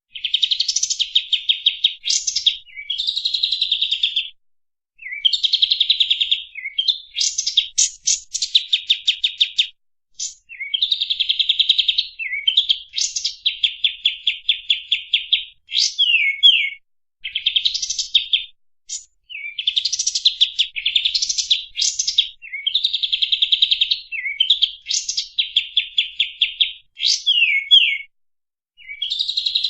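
Kapas tembak song: fast, densely packed trilled phrases of rapid repeated notes, each burst a second or two long with short pauses between, some ending in quick downward slurs.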